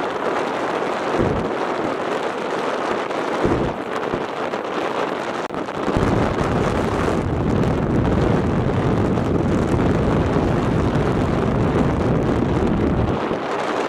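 Strong storm wind blowing hard across the microphone over a steady rushing hiss. Two short, low buffets come in the first few seconds, then a long, heavy rumbling buffet runs from about six seconds in until shortly before the end.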